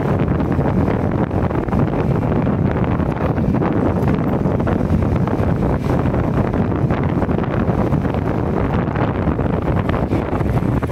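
Steady wind buffeting on the microphone from a ride along a road, with vehicle engine and road noise underneath.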